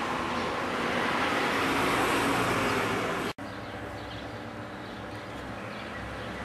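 Road traffic noise, louder and hissier for about three seconds, then an abrupt cut to a quieter, steady traffic hum.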